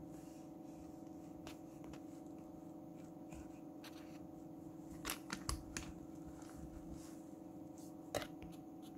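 Handling noise from a plastic air blow gun and brass fitting being moved and set down on a cloth: a few light clicks and taps, bunched about five seconds in and once more near the end, over a steady background hum.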